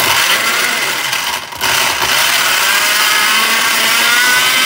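Countertop blender motor running at high speed, blending milk and sugar; it cuts out briefly about a second and a half in, then runs on steadily with a slightly wavering whine.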